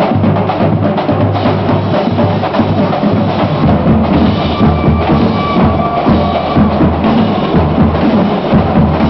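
Drumline playing a fast cadence: rapid stick and mallet strokes with the low notes of tuned marching bass drums moving between a couple of pitches.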